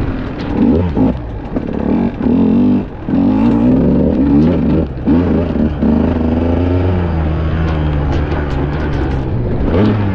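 KTM EXC enduro motorcycle engine running under way, its pitch rising and falling with the throttle, with short dips in power about three and five seconds in.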